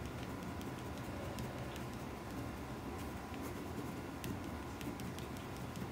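Colored pencil shading on paper: faint scratching strokes with scattered light ticks over a steady low room hum.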